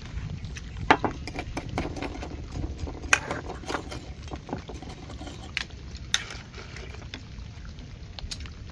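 Metal ladle and chopsticks clinking against a steel pan and ceramic bowls as soup is served and eaten, with a few sharp, briefly ringing clinks about a second in, about three seconds in and about six seconds in among lighter taps. A low steady rumble runs underneath.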